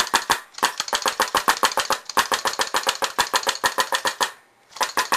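2002 WGP Autococker paintball marker dry-fired in rapid succession, its low-pressure regulator turned down: a fast, even string of sharp pneumatic shots at about eight a second. The string breaks off about four seconds in, and a second burst starts near the end.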